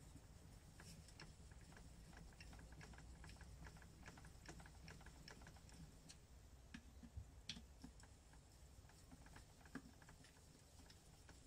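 Faint, irregular light clicks and ticks of a hand tool working the clutch spring bolts on a D50B0 moped engine's clutch pressure plate, over a low steady hum.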